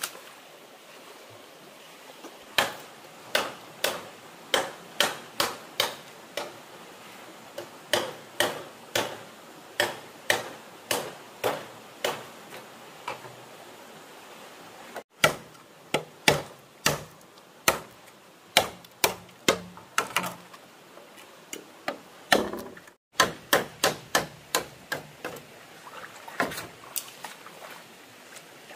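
A hand tool striking bamboo again and again: sharp knocks at about two a second, in runs with short pauses, over a steady faint hiss.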